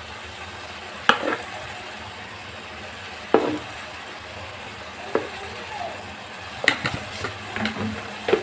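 Mutton intestines and masala frying in oil in a metal kadai, a low steady sizzle, broken by a handful of short sharp taps against the pan as curry powder is spooned in.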